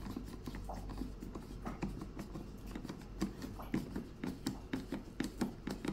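Screwdriver turning the cord-clamp screw in a steam iron's plastic rear housing: a run of small irregular clicks and scrapes, coming more often in the second half.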